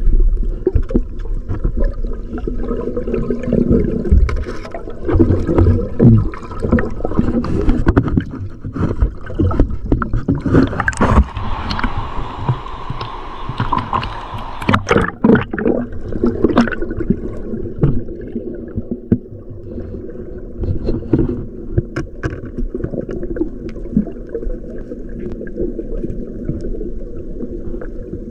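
Muffled water sloshing and gurgling, as picked up by a camera in the river water, with scattered sharp knocks and clicks and a brighter hissing stretch in the middle.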